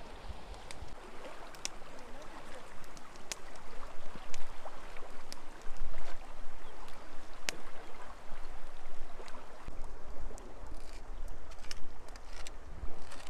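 River water flowing steadily, with scattered sharp clicks and crackles over it.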